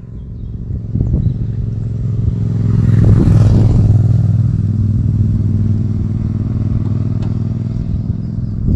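A steady, low motor hum that swells to its loudest about three seconds in, then slowly eases off, like a machine passing close by.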